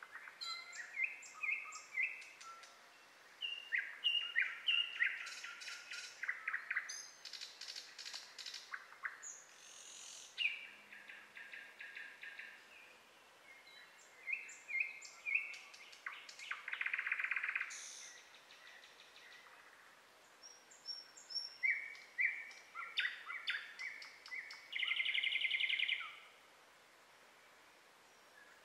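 Wild songbirds singing: short chirps, trills and quick rattling phrases, one after another with brief pauses.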